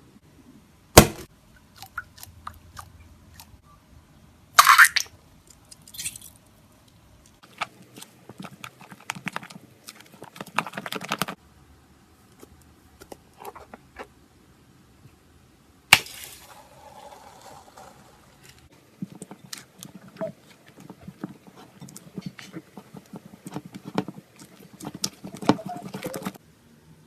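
Slime being handled: sticky clicks, pops and crunchy crackles in scattered bursts, with a sharp loud snap about a second in and another about two-thirds of the way through.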